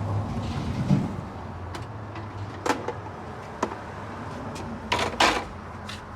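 A handful of sharp plastic knocks and clicks, the strongest a double knock about five seconds in: the parts and lid of a cordless wet/dry shop vac being handled and put back together. A low steady hum lies underneath.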